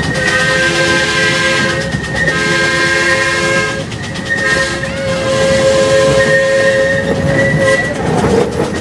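Miniature steam locomotive's chime whistle blowing three blasts, two shorter ones and then a longer one of about three seconds. Beneath it run a steady high squeal from the wheels on the curving track and the train's rumble.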